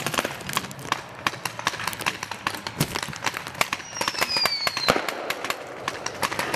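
Paintball markers firing in rapid, irregular volleys: several sharp pops a second, some near and some farther off. A short falling whistle tone sounds a little past the middle.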